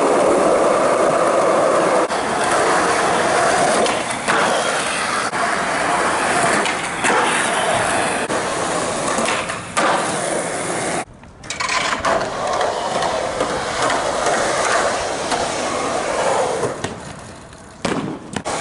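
Skateboard wheels rolling on concrete, broken by several sharp clacks of the board popping and landing.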